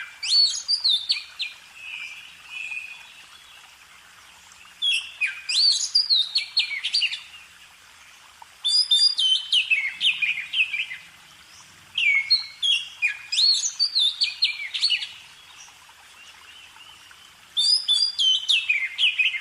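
A songbird singing, repeating the same phrase about five times: each phrase is a quick run of high, mostly falling notes lasting two to three seconds, with short pauses between.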